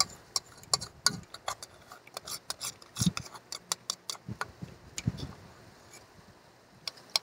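Irregular small clicks and ticks, several a second, with a few soft thuds among them, from something being handled in the hands close to the microphone; they stop about six seconds in, with two last clicks near the end.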